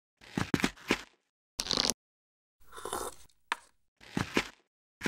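A string of short, clicky, scraping sound effects, about half a dozen separate bursts, each cut off into dead silence.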